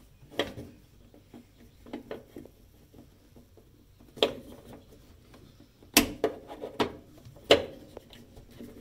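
Hands fitting a red plug into the wiring beside the battery, making a series of sharp clicks and knocks, about six, the loudest in the second half.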